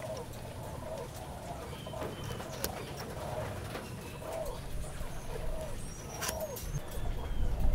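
Doves cooing over and over in the background, with a couple of sharp clicks. A low rumble rises near the end.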